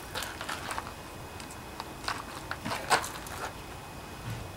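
Scattered light clicks and taps of hand tools and the valve cover of a Honda GC160 engine being handled, with the loudest tap about three seconds in.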